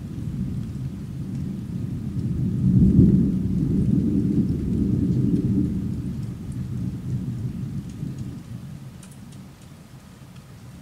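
A long roll of thunder, a low rumble that builds to its loudest about three seconds in and dies away after about eight seconds, with rain falling.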